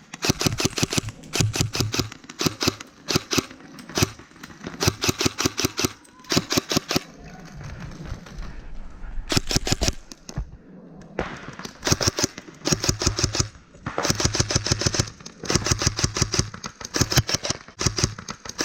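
Airsoft guns firing rapid full-auto bursts, each about a second long, one after another with short pauses between.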